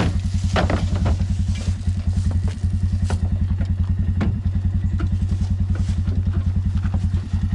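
Four-wheeler (ATV) engine idling with a rapid, even low beat. A few short knocks and clatters come in the first second or so and again about three and four seconds in.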